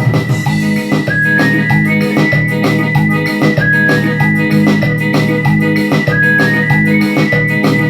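Instrumental keyboard music: an organ-toned synthesizer lead plays a repeating melody, sliding up into its notes, over sustained chords and a steady beat.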